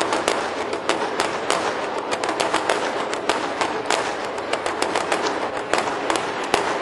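Large outdoor crowd clapping: a dense, irregular patter of many hands with sharper claps close by standing out.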